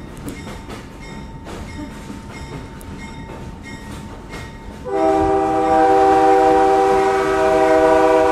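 Passenger coach rolling with a steady rumble and the click of wheels over rail joints; about five seconds in, the Alco RS-1 diesel locomotive's air horn sounds a long, loud, steady chord, warning road traffic at a grade crossing that a train is coming.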